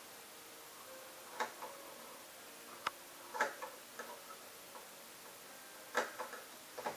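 Five irregular light clicks and taps, some with a brief ring after them, over a quiet room background.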